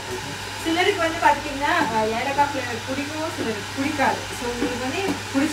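People talking over a steady low hum.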